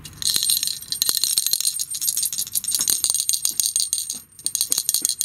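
Small bell jingling and rattling inside a plastic rolling cat toy as a hand shakes and rolls it: a fast run of clicks and rings, breaking off briefly just before the end.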